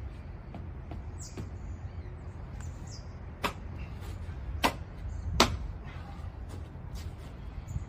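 Sharp knocks and taps from hand work on quoin blocks being set on a brick corner: three clear knocks in the middle, the last the loudest, among lighter clicks over a steady low rumble.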